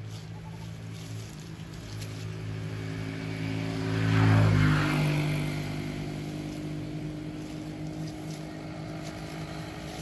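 A motor vehicle passing on the road: its engine hum grows louder to a peak about four and a half seconds in, then fades.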